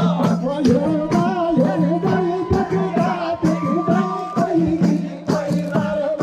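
A group of men singing a Hindu bhajan together, holding long wavering notes, over a steady low drone, with a jingling hand-held frame drum struck along in quick, uneven strokes.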